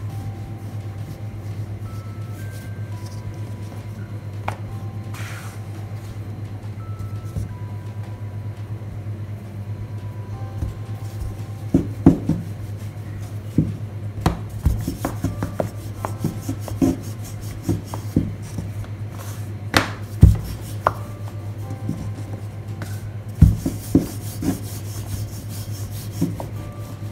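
Rolling pin rolling over paratha dough on a floured wooden tabletop, with scattered sharp knocks and taps in the second half as the pin and dough rounds are handled and set down. A steady low hum runs underneath.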